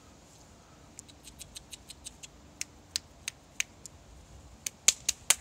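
A person clicking their tongue to call chickens: a run of sharp clicks, a few a second, starting about a second in and loudest near the end.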